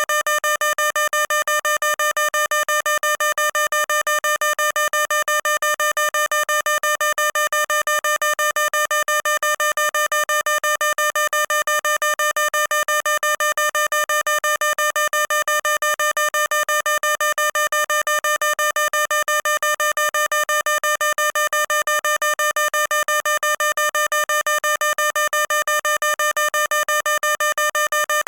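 Electronic fire alarm sounding continuously: a single pitched electronic tone pulsing on and off rapidly, several beeps a second, without a break.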